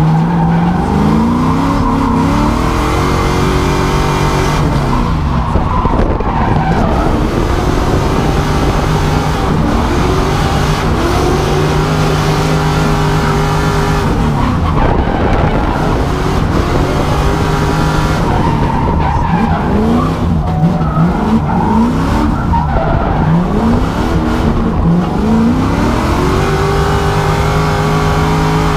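LS V8 in an E36 BMW drift car driven hard through slides. The engine pitch climbs and holds high for a few seconds at a time, dropping and climbing again about every five to eight seconds, over constant tyre skid and squeal.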